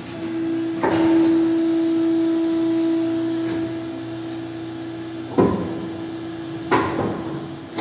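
Sumitomo SH450A plastic injection molding machine starting its cycle: a steady hum from its hydraulic drive comes on with a click as the clamp moves, then two sharp clunks near the end.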